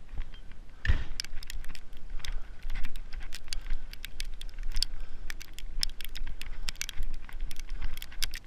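A thump about a second in, then keys rattling and clicking irregularly while a locked door is being unlocked.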